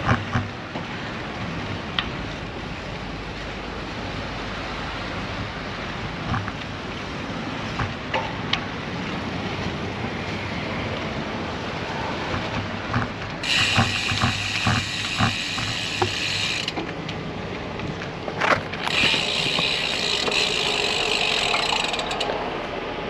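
Road bike's rear freehub ratchet buzzing while coasting, in two spells of a few seconds each that start and stop abruptly, about halfway through and again a little later, over steady wind and road noise with a few sharp clicks.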